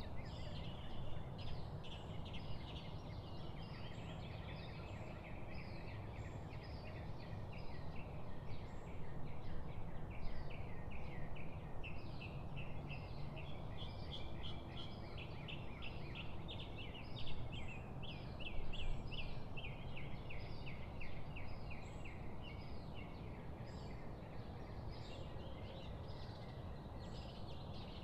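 Many small birds chirping and twittering in a dense, continuous chorus of quick short notes, over a steady low background rumble.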